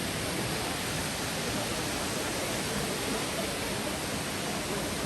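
Minoō Falls (Minoō Ōtaki) pouring down, a steady, even rush of falling water.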